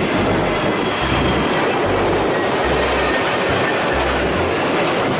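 A steady clattering, rattling noise, with a low pulsing beat underneath that recurs every second or so.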